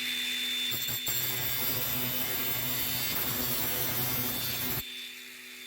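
Angle grinder with a thin-kerf stainless-steel cutting disc slicing across a steel oscillating multi-tool blade to cut off its worn teeth, a steady loud whine and hiss. About five seconds in, the cut ends and the disc runs on freely with a fainter steady hum.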